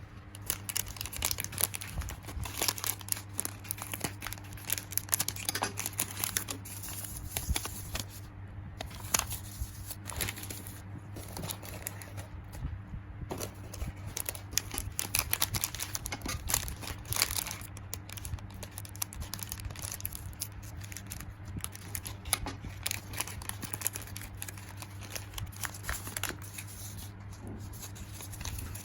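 Plastic packaging being crinkled and pulled open by hand to unwrap a squishy toy: a dense, irregular run of crackles that goes on throughout.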